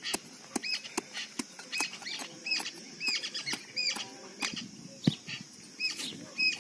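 A small hand tool knocking and scraping into dry sandy soil as a small hole is dug, a series of short sharp clicks and thuds with the strongest about five seconds in. Repeated short high chirps run behind it.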